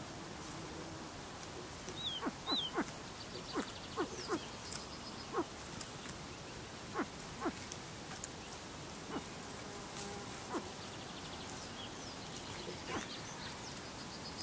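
Capercaillie chicks moving about a nest of dry leaves and twigs: a scatter of sharp clicks and crackles, thickest in the first five seconds, with two short high peeps about two seconds in. A faint rapid trill sounds twice in the background.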